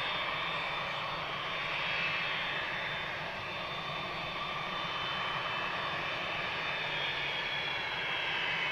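McDonnell Douglas MD-83's rear-mounted Pratt & Whitney JT8D turbofans running at steady, low power: a steady jet rush with several high whining tones that drift slightly in pitch.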